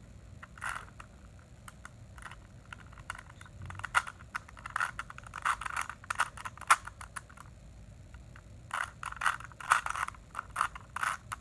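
Plastic Rubik's cube being turned in quick runs of moves, its layers clicking and scraping against each other, with a pause of about a second after the middle.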